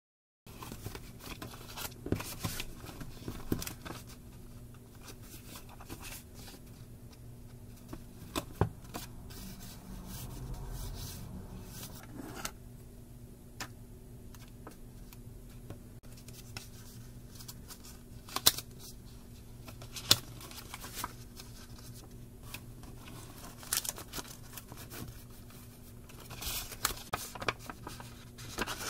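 Paper being handled: sticky notes and a small spiral-bound notebook rustling under the fingers, with occasional sharp taps and clicks, over a faint steady hum.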